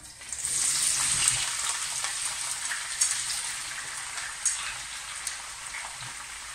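Chopped green asparagus hitting hot olive oil in a frying pan: a sudden sizzle that starts about half a second in and slowly fades to a steadier, quieter sizzle, with a couple of sharp ticks as more pieces drop in.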